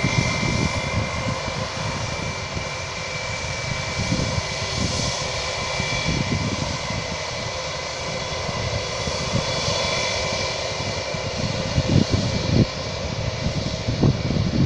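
Bangkok Airways jet airliner's engines running with a steady whine at the runway, heard across the airfield, with irregular low rumbles underneath.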